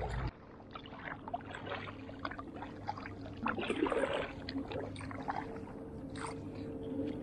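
Kayak paddle strokes on the water: irregular splashing and dripping with small clicks and knocks, the biggest splash about four seconds in. A faint steady hum runs underneath.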